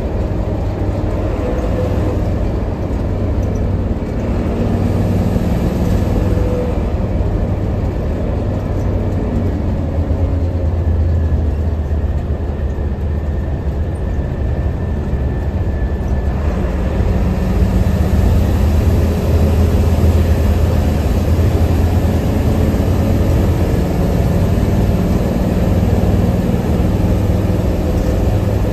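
Hino AK8 diesel bus under way, heard from inside the cabin: a steady low engine drone with road noise. It grows slightly louder about two-thirds of the way through.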